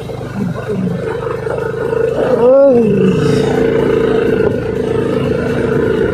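Honda Click 160 scooter's single-cylinder engine running steadily on an off-road track, with one brief rev that rises and falls about two and a half seconds in.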